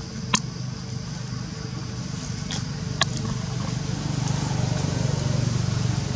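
A low, steady engine hum that grows a little louder in the second half, with two sharp clicks, one just after the start and one about three seconds in.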